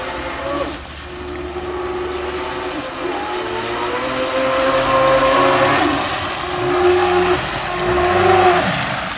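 Small remote-controlled boat's electric motor whining as the boat skims across the water toward the shore, with the hiss of its spray. Pitch and loudness rise and fall, peaking about five seconds in and again near the end.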